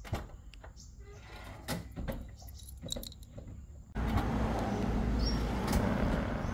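Toyota Vios boot lid unlatching with a sharp click and swinging up by itself on spring-assisted lift springs, heard over steady outdoor noise. Before it come scattered light clicks and knocks.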